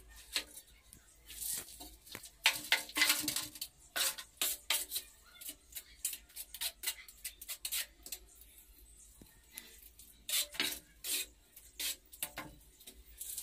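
A mason's trowel scraping and clinking in a pan of cement mortar, in irregular strokes that come thickest in two spells.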